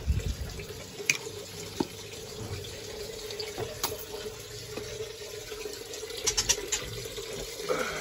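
Water running steadily from a tap on a pipe, a continuous splashing hiss, with a few short clicks and knocks of handling.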